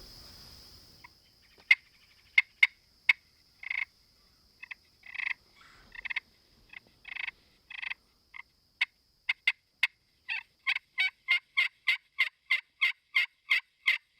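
Turkey clucks and yelps: short sharp notes, scattered at first, then running together into an even series of about three a second.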